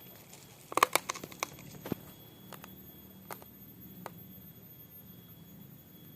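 A quick run of sharp clicks and knocks about a second in, followed by a few single clicks spaced about a second apart.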